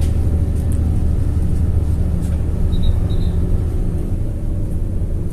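Coach bus heard from inside the cabin while driving: a steady low engine drone with road rumble. Two brief high chirps come about three seconds in.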